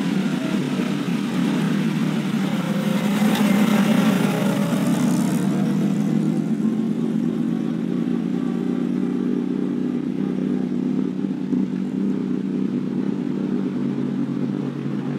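Engine of a vintage pre-war open racing car running as it drives past close by, loudest a few seconds in, then carrying on as it pulls away. A second car's lower, steady engine note comes in near the end.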